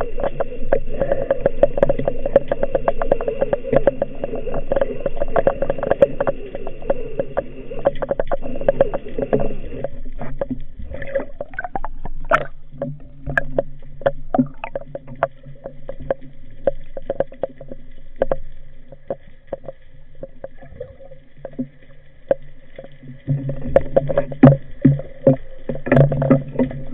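Underwater sound: a steady low drone with scattered sharp clicks and knocks. The drone thins out in the middle and grows louder again near the end.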